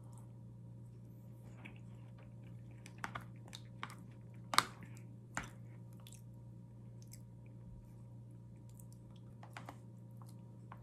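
Sparse small clicks and taps over a steady low electrical hum. The clicks cluster around three to five and a half seconds in, the loudest about four and a half seconds in, with two more near the end.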